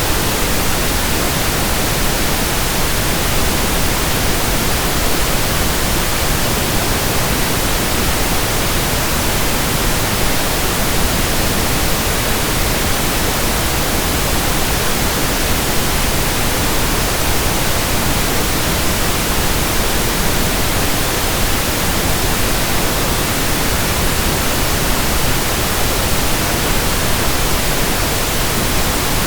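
Steady pink noise: an even, unbroken hiss spread across all pitches, holding one level throughout with no rhythm or other sound.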